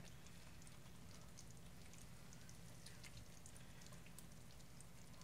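Near silence: a faint low hum with scattered soft clicks from a slotted spoon scooping sauced ravioli out of a crock pot.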